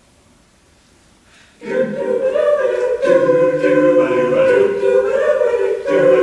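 A choir singing a cappella. After faint hiss, it enters about one and a half seconds in with held, multi-part chords and brief breaks between phrases.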